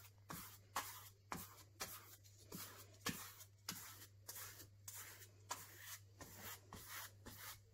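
Paintbrush scrubbing paint onto a canvas: faint brushing strokes, about two a second, over a low steady hum.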